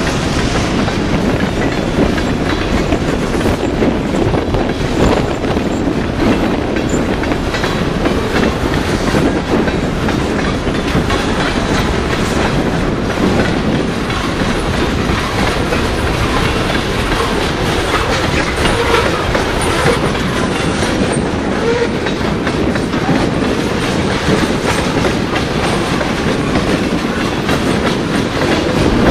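Freight train of open-top gondola cars and tank cars rolling steadily past, with a continuous rumble of wheels on rail and the clickety-clack of wheels over rail joints.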